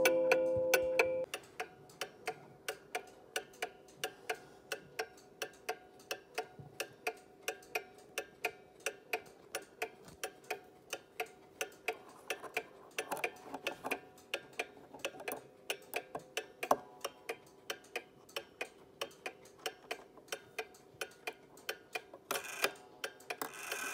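Small spring-driven striking clock's movement ticking with a quick, even beat. In the first second the last blow on its coiled wire gong is still ringing out, and it cuts off abruptly.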